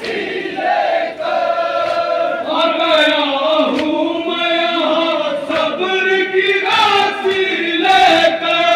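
A group of men chanting a noha, a Shia lament, in unison, with long held notes that step between pitches. A few sharp strikes cut in between the lines.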